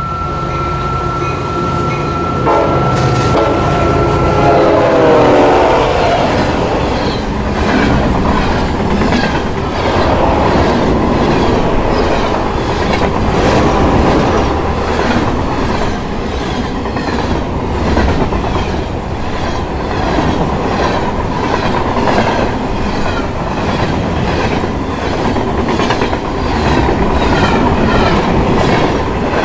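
Metro train passing at speed. A steady tone for the first few seconds drops in pitch about five seconds in, then the wheels clatter over the rail joints in a regular clickety-clack over a continuous rumble.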